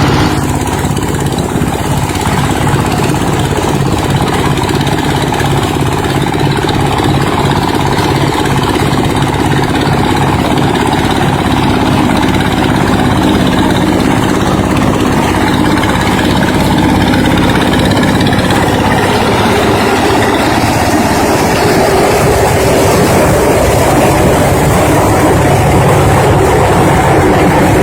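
Engine-driven corn sheller running: a steady engine drone with an even low pulse, growing slightly louder and rougher in the last third.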